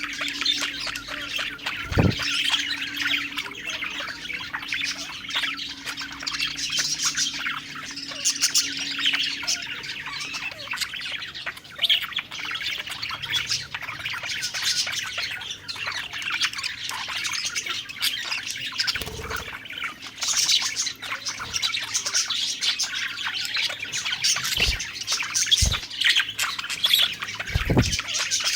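Several budgerigars chattering and warbling continuously with rapid chirps and squawks. A few low thumps are heard among the chatter.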